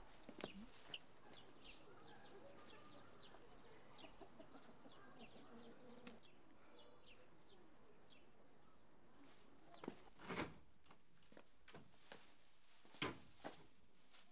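Near silence: faint background ambience with small, short high chirps or ticks, then a few short soft knocks in the last few seconds.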